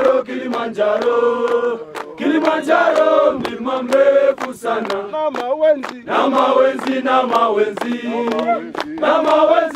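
A group of men, Kilimanjaro porters and guides, singing a Swahili song together and clapping their hands in time.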